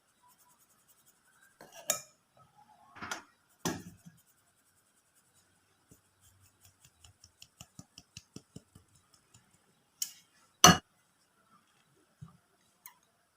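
Kitchen utensils knocking and clinking against bowls and dishes: a few separate knocks, the loudest near the end, and a quick run of light taps in the middle.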